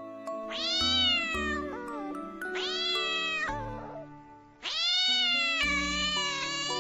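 A domestic cat meowing three times, each meow rising then falling, the last the longest, over light background music.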